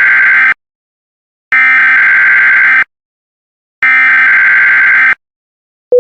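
Emergency Alert System SAME header: three identical bursts of buzzing digital data tones, each a little over a second long with about a second of silence between, the first already underway. A steady single tone begins right at the end.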